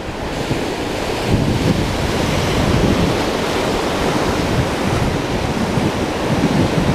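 Ocean surf surging and breaking against rocks, a steady rush of water, with wind buffeting the microphone.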